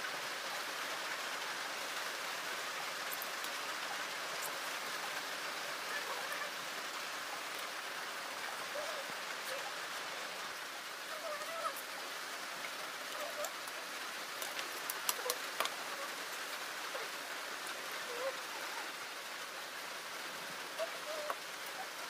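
Pitha fritters deep-frying in hot oil in an iron karahi: a steady sizzle with scattered sharp pops and crackles.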